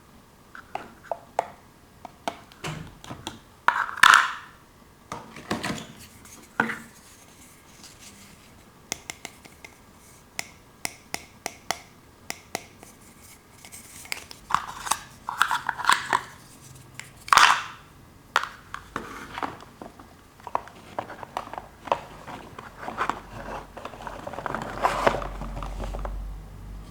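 Small plastic toy-kitchen pieces being handled: irregular clicks, taps and light clatter. Near the end comes a few seconds of steadier scraping and rustling.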